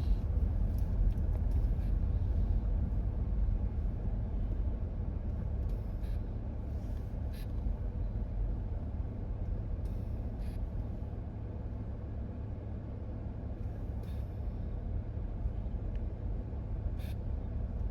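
Steady low rumble of a car driving, heard from inside the cabin: engine and road noise, with a few faint clicks.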